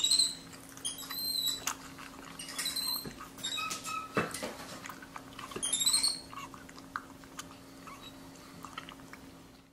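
Capuchin monkey sipping from a plastic cup: small wet slurping, smacking and clicking mouth sounds, with a few short high squeaks.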